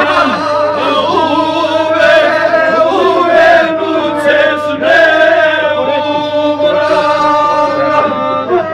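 Folk music with singing over instrumental accompaniment, playing loudly and continuously.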